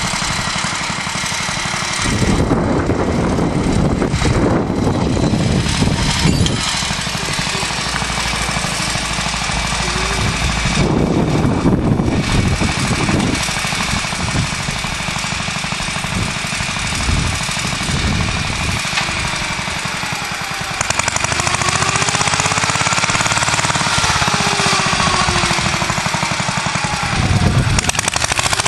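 The JAP petrol engine of a 1947 Clifford MK1 walking tractor, running steadily under load while ploughing, with a rapid, even chatter of firing strokes. The engine note wavers in the second half.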